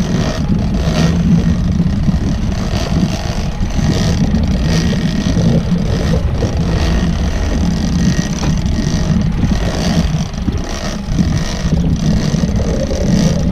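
Boat engine running steadily, a low drone that holds through without a break.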